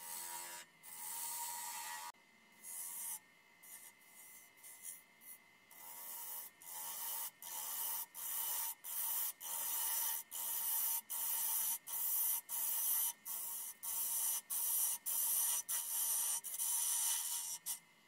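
A turning tool cutting into a spinning hazel wood blank on a lathe, in short repeated cuts. A scraping hiss comes and goes, irregular at first, then about twice a second and louder in the second half, over a faint steady whine.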